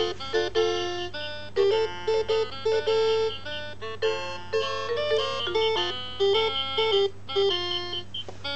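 VTech Winnie the Pooh Slide and Learn storybook playing an electronic tune through its small built-in speaker: a quick melody of short, separate notes.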